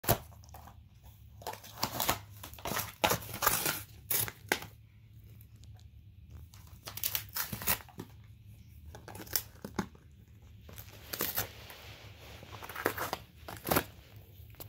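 A dog tearing and shredding cardboard with its teeth, in irregular rips and crinkles with short pauses between.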